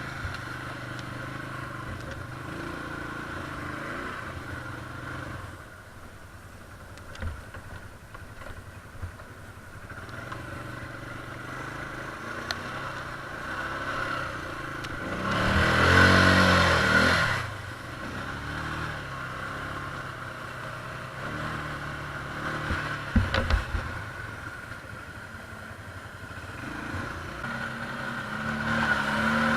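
ATV engines running. About halfway through, one engine grows loud for a couple of seconds, its note sweeping as it revs or passes close. A few sharp clunks follow a little later.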